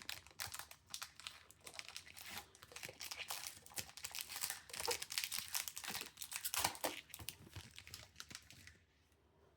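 Faint rustling and crinkling of trading cards being handled, a run of irregular small clicks and rustles that dies away near the end.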